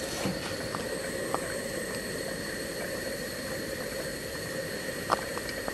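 Stuart Turner S50 model steam engine running slowly and smoothly on live steam: a steady hiss with a few faint clicks.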